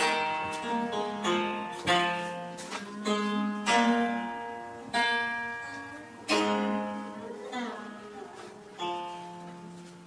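Chaozhou zheng played solo: plucked notes with sharp attacks, each ringing out and fading, a few of them sliding in pitch as the strings are pressed.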